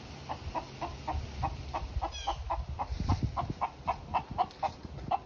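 Backyard hens clucking in a steady series of short calls, about three to four a second.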